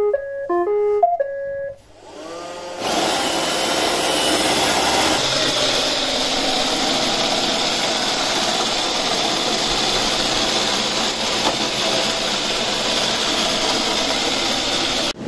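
iRobot Roomba robot vacuum started with its Clean button: a short tune of beeping notes plays, then its motors spin up with a rising whine about two seconds in. It then runs with a steady vacuum and brush noise.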